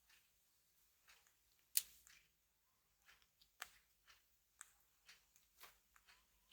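Faint, irregular light clicks and taps of a smartphone being handled, with one sharper click about two seconds in.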